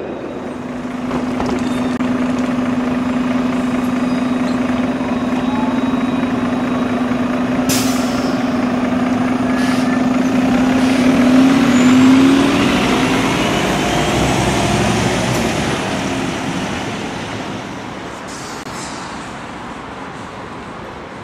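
Alstom Citadis 302 tram approaching and passing close on its rails. It makes a steady electric hum, with faint whining tones from its motors rising in pitch. The sound grows to its loudest about twelve seconds in, then fades away. There is one sharp click about eight seconds in.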